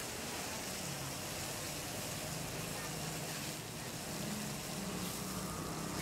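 Steaks frying in oil on a flat-top griddle, a steady sizzling hiss, with a low engine-like hum underneath from about a second in.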